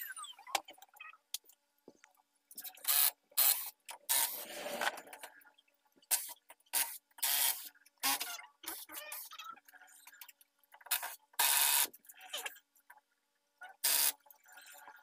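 Irregular short scraping and rubbing noises from hands working at a workbench, coming in separate strokes with gaps between, some lasting about half a second.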